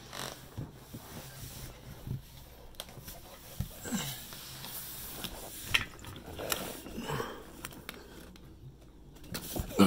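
Handling noise: scattered soft clicks and knocks with some rustling.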